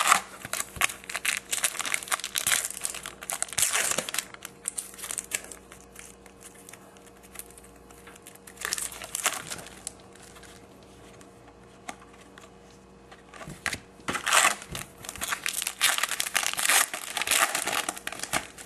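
A trading-card pack wrapper crinkling and being torn open, in three spells of crackling with short pauses between.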